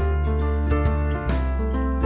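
Instrumental background music: a deep held bass under sustained pitched notes, with a few light percussion hits; the bass changes note partway through.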